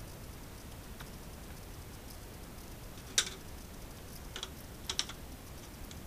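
Sharp plastic clicks as a small screwdriver pries at the seams of a Seagate Central network drive's plastic case: one loud click about three seconds in, then a lighter one and a quick pair a second or two later.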